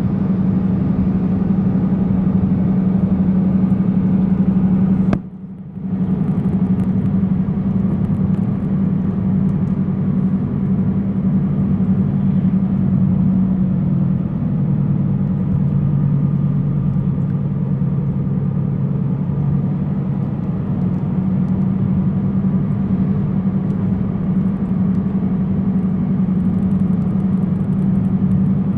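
Car driving with a steady low droning hum over the road noise, which the owner suspects is a bad front driver's-side wheel bearing. The sound cuts out briefly about five seconds in, and the drone drops lower in pitch for a few seconds midway before coming back up.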